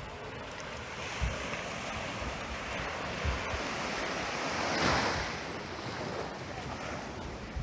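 Small, gentle waves lapping and washing up a sandy beach on calm sea, one wash swelling louder about five seconds in. Wind buffets the microphone now and then.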